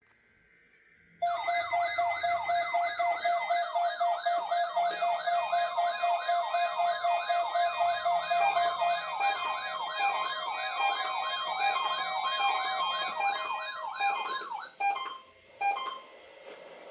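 Weather radio alert alarm sounding for a weekly test: a rapid siren-like yelp of about three rising sweeps a second. A steady tone joins it about halfway through, and it breaks off into a few short bursts near the end.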